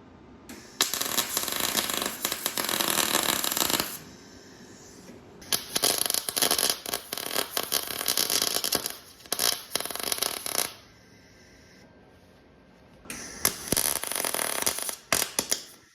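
Titanium wire-feed welder tack-welding a steel engine mount: three bursts of crackling arc, about three, five and two and a half seconds long, with pauses between.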